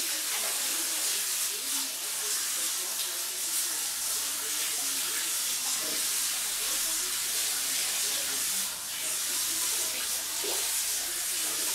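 Water spraying steadily from the handheld shower head of a salon hair-washing basin as a client's hair is rinsed, a continuous hiss of running water.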